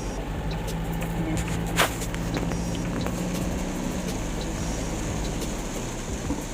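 Vehicle engine running steadily with road noise, heard from on board as it drives, with scattered small ticks of light rain and one sharper click about two seconds in.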